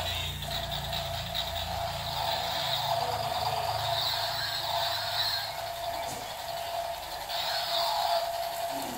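Battery-powered toy helicopter running on its own: its small speaker plays an electronic helicopter sound effect over the whir of its drive motor and spinning rotor, steady throughout.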